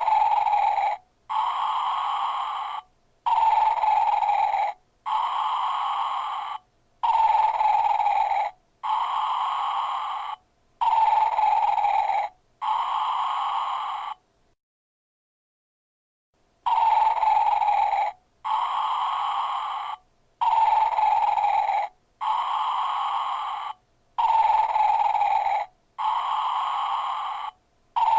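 Motion-activated snoring gnome playing a recorded snore from its built-in speaker: snoring breaths of about two seconds each, alternating louder and softer, repeating in a steady cycle. About halfway through it stops for a couple of seconds, then the cycle starts again.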